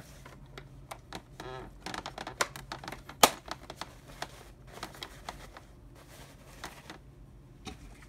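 Rustling of a disposable vacuum bag and scattered clicks of plastic parts as the bag compartment of a Hoover Windtunnel upright is handled; one sharp click about three seconds in is the loudest.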